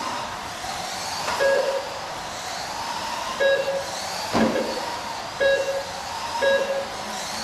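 Electric motors of mini RC trucks whining up and down in pitch as they race around an indoor track. Short beeps come every one to two seconds, typical of a lap-timing system as cars cross the line, and a single thump sounds about four seconds in.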